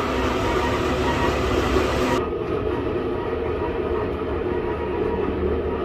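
Steady mechanical drone with a few held tones; the higher part of the sound cuts off abruptly about two seconds in.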